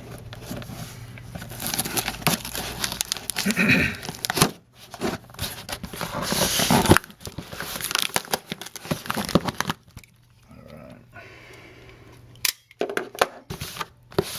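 A shipping package being torn open by hand: ripping and crinkling of packaging with sharp handling clicks, including one longer rip a few seconds in.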